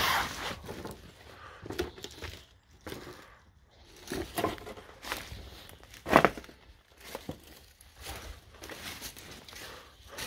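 Footsteps crunching and rustling over rubble and debris in irregular bursts, with one sharp, louder knock about six seconds in.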